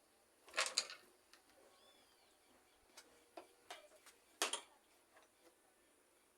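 Metal hand tools clinking and clattering while a tool case is rummaged through for a wrench. It comes as a handful of separate knocks, loudest about half a second in and again about four and a half seconds in.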